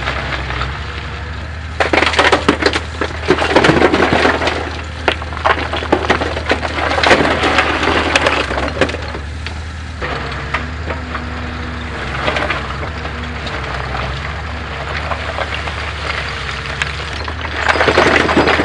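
Kubota mini excavator's engine running steadily while its bucket scrapes and crashes through a pile of rocks and drops them into the mini truck's steel bed. Loud clattering and crunching of stone comes in three bursts: a few seconds in, again around seven seconds, and near the end as a load tumbles into the bed.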